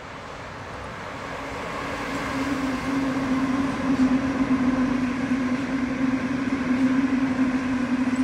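Double-deck electric suburban train approaching and running into the station. Its steady hum and the rolling noise grow louder over the first few seconds and then hold.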